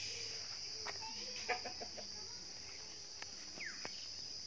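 Steady high-pitched insect chorus droning without a break, with a few faint short bird calls and light clicks over it.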